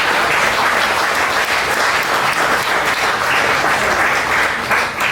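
An audience applauding steadily as a speaker is welcomed to the lectern.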